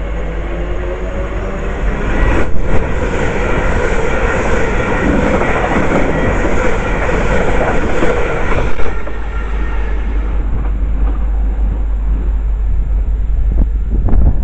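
A train passing through at speed, its noise swelling about two seconds in and easing off after about nine seconds, with wind rumbling on the microphone.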